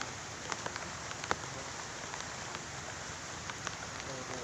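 Rain falling steadily, an even hiss with scattered sharp ticks of drops landing, one louder drop about a second in.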